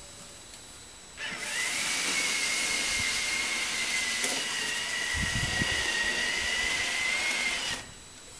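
A small electric motor running with a high whine over a hiss. It starts abruptly a little over a second in, its pitch rising briefly as it spins up, holds steady, and cuts off near the end.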